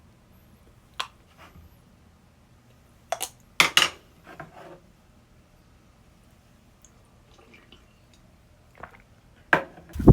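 Metal cookware and utensils clinking and clattering in a few separate, short knocks, the loudest a quick double clatter about three and a half seconds in and another near the end.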